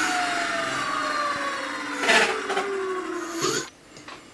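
Electric scooter hub motor whining as the wheel spins free, its pitch falling slowly as it winds down, with a brief knock about halfway; the whine stops near the end. The motor runs even with an E-08 error showing on the YKK controller.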